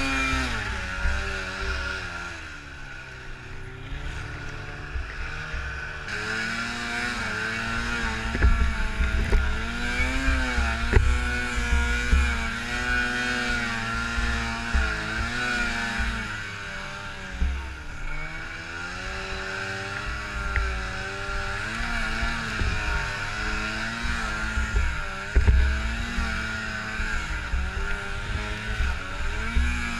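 Arctic Cat M 600 snowmobile's two-stroke engine under varying throttle, its pitch rising and falling every few seconds as it plows through deep powder snow. The engine drops lower for a couple of seconds near the start. Low, uneven rumbling of wind on the helmet microphone runs underneath.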